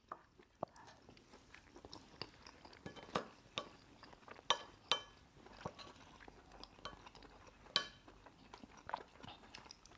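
Quiet eating sounds: wooden spoons scooping rice and tapping on plates, with chewing, heard as a scattering of short soft clicks and a few light clinks.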